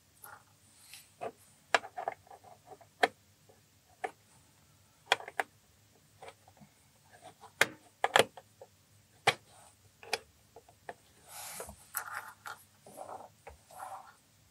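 Irregular small plastic clicks and taps, some sharp, with a brief rubbing slide about two-thirds of the way through: Lego minifigures being handled and set into a clear acrylic display case.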